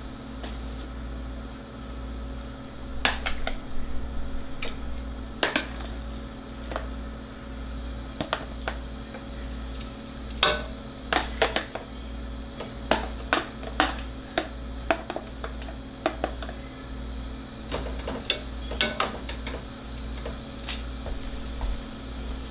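Spatula clacking against a plastic container and a non-stick pot as pieces of raw chicken are scraped and dropped in for browning: irregular sharp knocks, thickest in the middle of the stretch, over a steady low hum.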